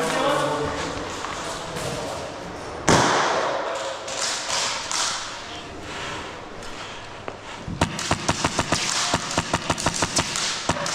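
One loud thud about three seconds in, then a rapid string of airsoft gun shots, about six a second, starting near the end.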